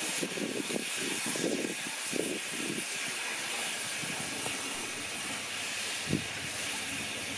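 1910 SLM steam rotary snowplough Xrotd 9213 under steam, its snow-clearing wheel turning: a steady steam hiss, with uneven low puffs over the first few seconds and a single knock about six seconds in.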